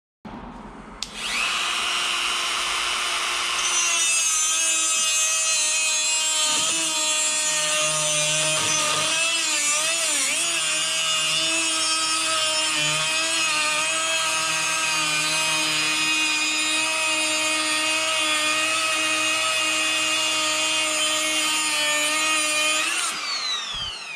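Dremel rotary tool grinding through a steel bolt held in a vise, throwing sparks: a steady high whine that spins up at the start and turns harsher once the wheel bites, about four seconds in. The pitch sags and wobbles briefly under load, and the motor winds down with a falling whine near the end.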